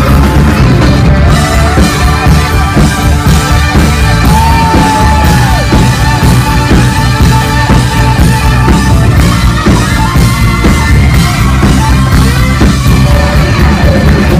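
Live rock band playing loud, with saxophone and electric guitar over drums; a long held lead note bends up and down about four seconds in.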